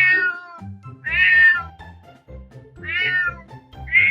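A cat meowing over and over, about one meow every second and a half, each a short call falling slightly in pitch. Background music plays underneath.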